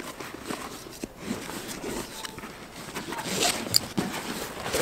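Fabric of a military backpack rustling as its pocket strap and locking buckle are handled, with a few light clicks from the buckle hardware.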